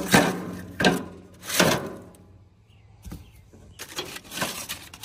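Metal grill parts being handled: three sharp clanks and scrapes in the first two seconds, then a few lighter knocks.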